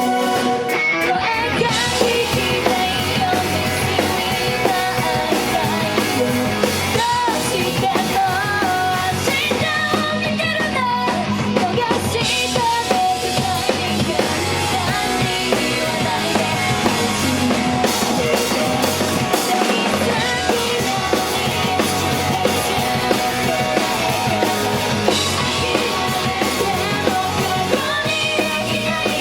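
Rock-style pop song with drum kit, guitar and singing, played loud over a stage sound system.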